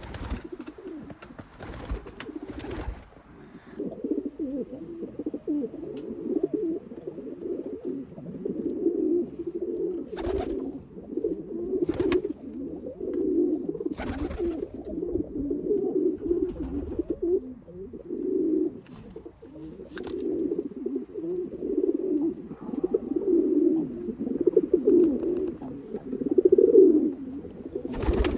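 Homing pigeons in a loft cooing continuously, several low coos overlapping, with a few brief sharp noises here and there.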